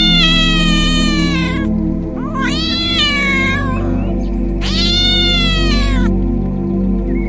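Domestic cat meowing three times, each a long, drawn-out meow of about a second and a half, with background music underneath.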